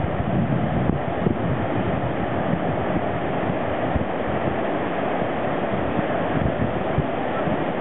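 Strong wind buffeting the microphone with a gusty low rumble, over a steady rush of surf breaking along a wide sandy beach.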